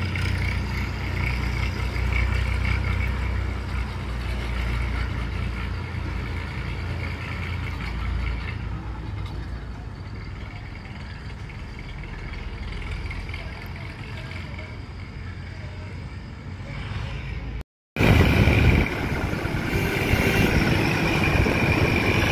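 Tractor diesel engine running steadily as the tractor drives away, its low hum growing fainter. After a sudden cut, louder tractor engine and road traffic noise from close behind a moving tractor, with a short loud burst just after the cut.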